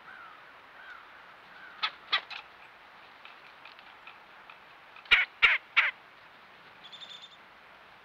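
Three loud, harsh, caw-like bird calls in quick succession a little after halfway, preceded by a few fainter short calls.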